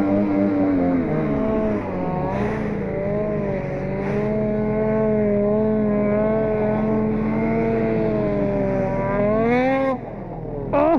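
Snowmobile engine at high revs as the sled spins circles in deep powder. The pitch swells and dips at first, then holds high with a slight waver. It falls off near the end, and a sharp rev blip follows right at the close.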